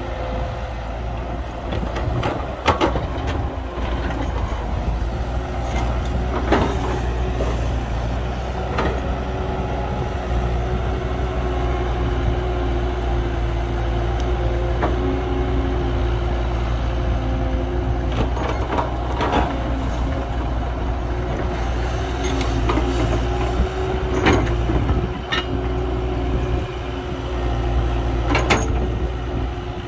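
Heavy diesel earthmoving machinery running steadily, with scattered sharp knocks and clanks.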